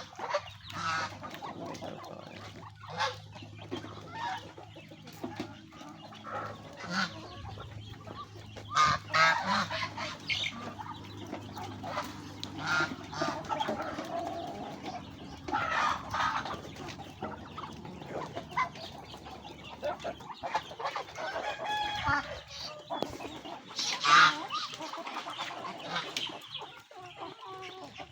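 A flock of chickens clucking and calling over one another, with a few louder squawks spread through.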